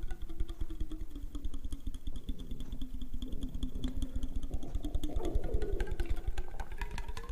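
A man's stomach growling: one long, wavering gurgle whose pitch sinks slowly, then rises again near the end, over a rapid patter of small clicks.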